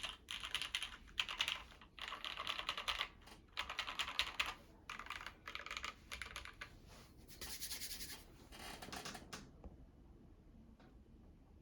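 Typing on a Matrix 8XV2.2 mechanical keyboard with Gateron Mink linear switches and GMK doubleshot ABS keycaps: fast runs of keystrokes about a second long with short pauses between them. The typing stops about nine and a half seconds in.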